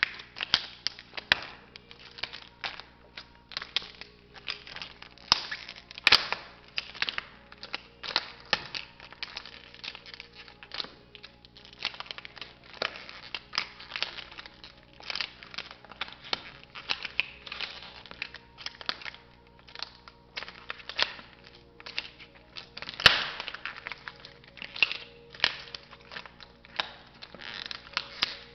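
Red and silver plastic toy bus cracking, snapping and crunching under stiletto heels on a tile floor: a long run of irregular sharp clicks and cracks, the loudest about six seconds in and again near the end. Faint background music runs underneath.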